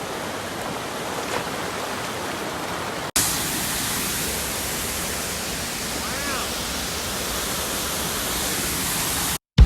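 Steady rushing water of a river. About three seconds in, the sound cuts abruptly to a louder stretch of the same rushing water.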